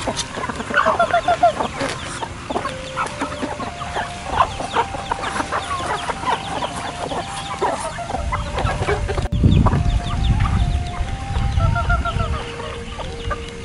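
A flock of chickens clucking and calling while feeding, with many short ticks. A low rumble comes in about two-thirds of the way through.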